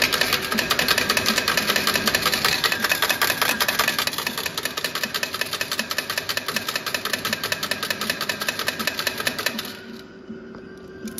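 Video slot machine tallying a €100 win: rapid, even ticking while the win meter counts down to zero, stopping suddenly near the end.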